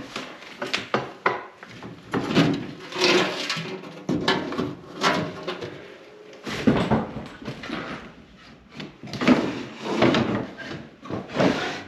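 Irregular knocks, scrapes and rustling from objects and bodies moving about in a small wooden room.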